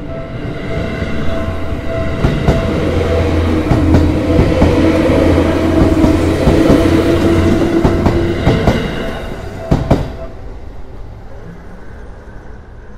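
An electric commuter train passing over a level crossing, its wheels clacking over the rail joints as it goes by, loudest in the middle and fading after about ten seconds. The crossing's warning bell rings over it and cuts off at about the same time, as the train clears the crossing.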